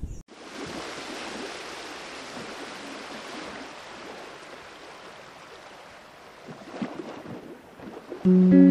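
Steady rushing hiss of creek water moving among mangrove roots, easing off slightly over the seconds. Loud guitar music comes in just before the end.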